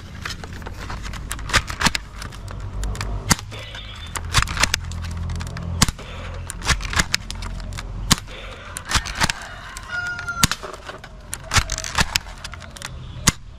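Toy AWM bolt-action sniper blaster being worked and fired again and again: a long run of sharp clacks and clicks at irregular spacing from the bolt and the shots, over a low rumble.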